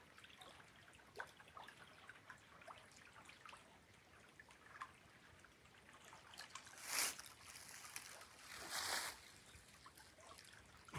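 Faint trickle and lapping of a shallow river riffle, with small scattered ticks of water. Two brief louder rushes of noise come about seven and nine seconds in.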